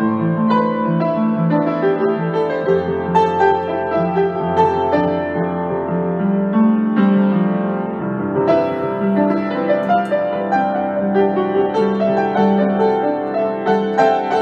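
Solo upright piano playing an improvised piece: a steady stream of struck notes in the middle register over held bass notes.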